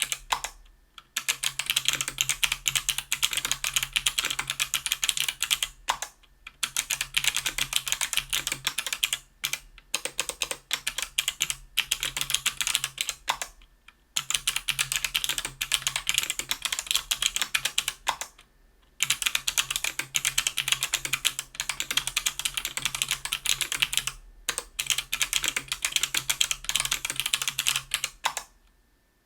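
Fast typing on a 60% aluminium-case keyboard with an aluminium plate, fitted with clicky Kailh BOX Crystal Navy switches (stock, 90g) and GMK keycaps: dense rattling runs of keystroke clicks broken by brief pauses. It stops shortly before the end.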